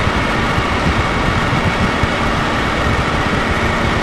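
Alpi Pioneer 200 ultralight's piston engine and propeller running steadily in cruise, heard from inside the cockpit as an even drone with faint engine tones under a broad rushing hiss.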